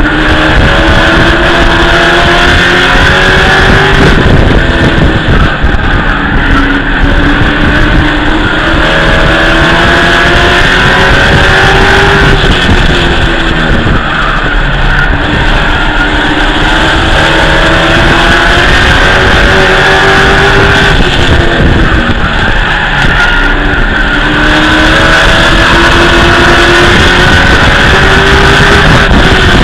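Race truck's V8 engine heard from inside the cockpit at race pace: the revs climb for several seconds, then drop off, over and over about every eight seconds as the truck laps the oval. A steady high whine runs under it.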